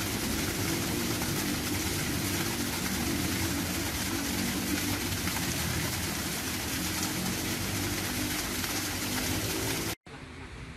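Steady splashing of a thin stream of water falling from a garden rock fountain, a constant even rush that stops abruptly about ten seconds in.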